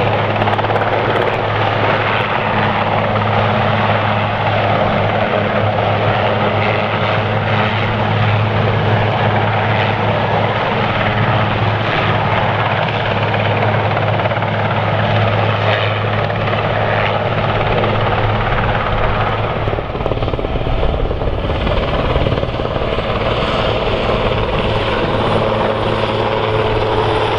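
Helicopter running steadily, a loud continuous drone with a constant low hum; about twenty seconds in the hum fades and a deeper rumble comes up.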